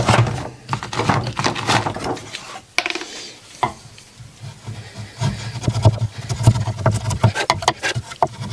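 Hand-tool work on a pine board: clicks and knocks as a chisel is taken up and set against the wood, then from about halfway a run of short, irregular scraping strokes of the chisel on the board.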